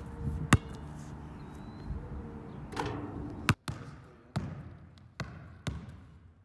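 Balls hitting hard ground: a basketball bounces sharply on asphalt about half a second in, with a couple more knocks. After a brief cut, a volleyball bounces on a gym floor several times, the bounces coming quicker and fainter as it settles.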